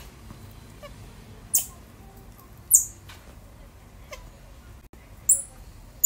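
Pet squirrel monkey and ring-tailed lemur play-fighting, with a few short, very high-pitched squeaks, each falling slightly in pitch: one about a second and a half in, one near three seconds, and two near the end.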